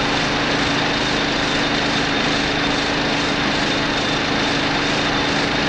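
Vibratory surface-strengthening (vibro-peening) machine running, working titanium-alloy aircraft parts. It makes a steady, dense mechanical noise with a constant low hum and a thin high whine over it.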